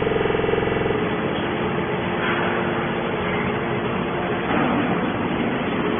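Machinery running: a buzzing hum with many evenly spaced overtones for about the first second, then a steady, noisy mechanical din.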